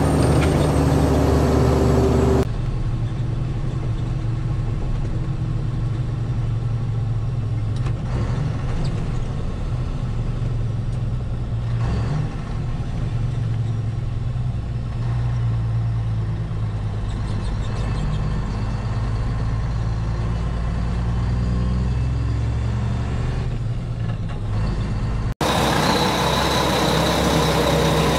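Mack truck's diesel engine running as the truck is driven, heard from inside the cab.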